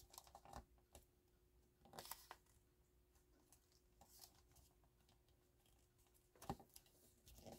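Near silence with a few faint rustles of a dictionary page being folded and creased by hand, loudest about two seconds in and again near the end.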